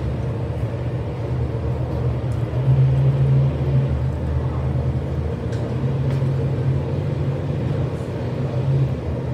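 Monster truck engines running out of sight, heard as a steady low rumble muffled through a window, a little louder about two and a half seconds in.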